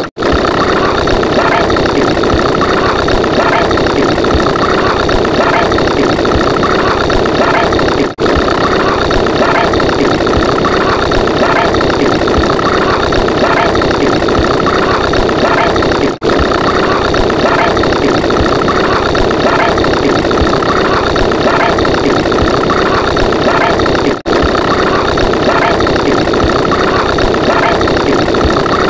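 Loud, steady, engine-like sound effect, looped: it repeats about every eight seconds, with a brief dropout at each restart.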